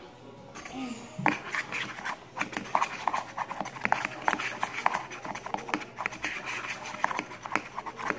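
Plastic utensil stirring a wet slime mixture in a plastic bowl, with quick, irregular clicks and scrapes against the bowl, starting about a second in.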